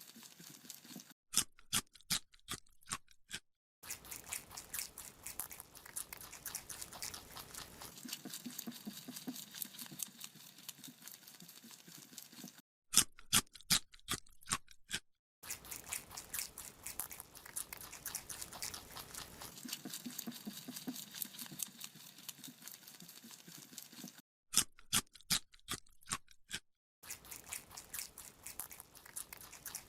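Rabbit chewing a carrot: rapid, continuous crunching, with three short spells of louder, sharper crunches, near the start, in the middle and near the end.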